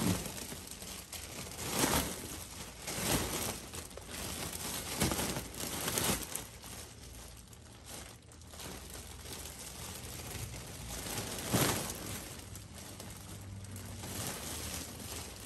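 Large foil (Mylar) balloon crinkling and crackling as a baby grabs, hugs and pushes it. The crinkles come in irregular bursts, with a quieter stretch about halfway through.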